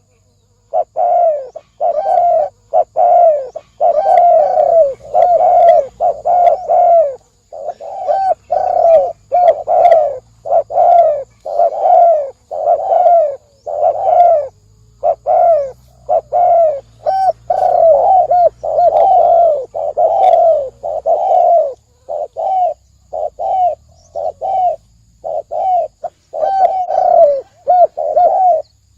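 Spotted dove cooing in a fast, unbroken series of short deep coos, about two a second, a rapid 'gáy gù' calling.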